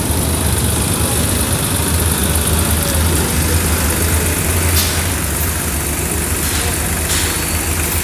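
A steady, low engine hum like an idling engine, with a broad background rumble and no distinct knocks or changes.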